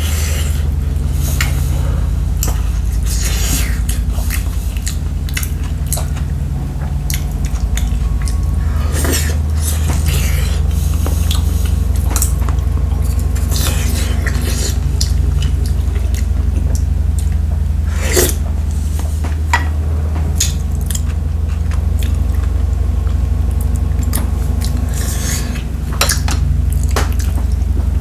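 Eating at a table: chewing, with chopsticks and a wooden spoon clicking and scraping against an earthenware stew pot and bowls in scattered short knocks, the sharpest about nine and eighteen seconds in. A steady low hum runs underneath throughout.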